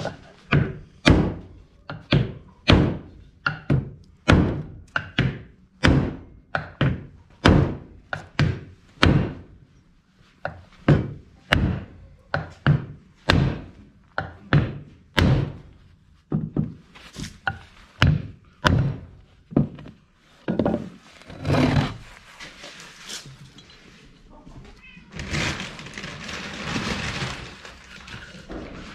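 Claw hammer striking a wooden board laid over a tractor's bevel gear housing, driving a new bearing into its seat. The blows come about twice a second for the first twenty seconds, then a few more spaced out. Near the end there are a few seconds of rustling noise.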